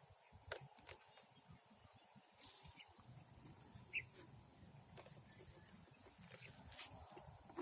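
Near silence, with a faint steady high-pitched insect trill and a few faint clicks.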